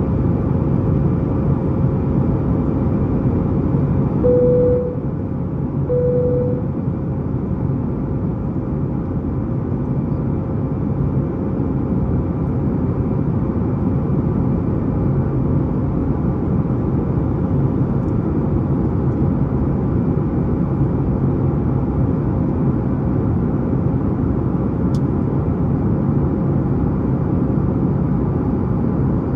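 Steady cabin drone of a Boeing 737-9 MAX climbing after takeoff, its CFM LEAP-1B engines and airflow heard inside the main cabin. Two short cabin chimes sound about four and six seconds in, and the drone drops a little just after the first one.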